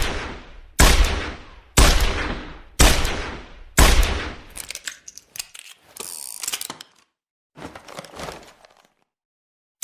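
.357 Magnum revolver firing five loud shots about a second apart, each with a ringing tail. Quieter metallic clicks and rattling handling sounds follow for a few seconds before a short silence.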